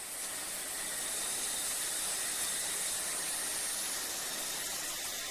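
Shower running: a steady spray of water hissing down. A bright, high hiss in the spray eases off about four seconds in.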